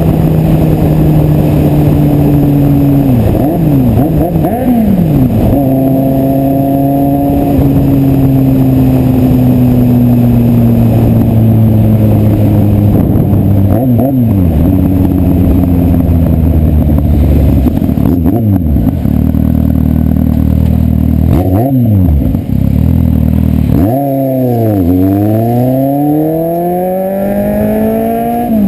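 Kawasaki Z750 inline-four motorcycle engine running and revving. Its pitch holds and slowly sinks, with several quick drops and climbs and a deep swoop down and back up near the end.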